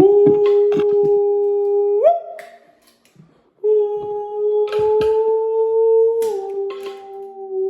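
A man humming long held notes, the first sliding up and breaking off about two seconds in, a second long note starting about a second later and dipping slightly near the end. Short sharp scrapes and clicks from the cutting sound between and under the notes.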